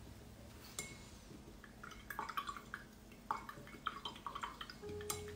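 Faint, irregular light clinks and drips: a paintbrush being rinsed and tapped in a water cup. A steady low hum comes in near the end.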